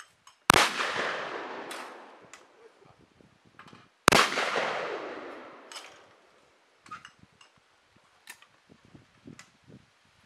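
Two shotgun shots about three and a half seconds apart. Each rings out and dies away over about two seconds. A few faint clicks follow.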